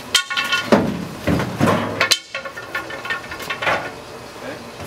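Steel pizza-oven cart carrying the oven being rolled and shifted into place: a series of irregular clunks and scrapes.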